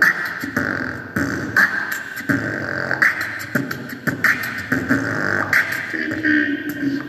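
A child beatboxing into a handheld microphone, amplified through PA speakers, with sharp percussive mouth sounds about twice a second.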